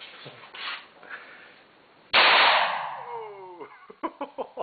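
M16 rifle fired on full automatic: a short burst about two seconds in, very loud and trailing off into echoing ringing, followed by several sharp clicks and clanks.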